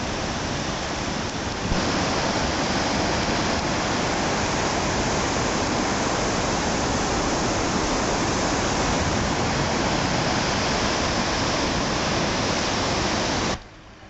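Iguazu Falls: the water of the falls pouring over the brink, a loud, steady rushing noise. It cuts off abruptly near the end.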